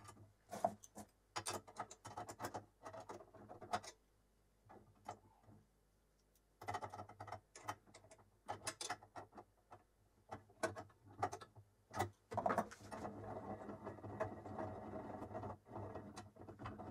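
Metal parts of a home-made lathe bed being handled and fitted: a run of light clicks and knocks, a pause of a couple of seconds, more clicks, then a steadier rattle near the end as the handwheel on the lead screw is worked.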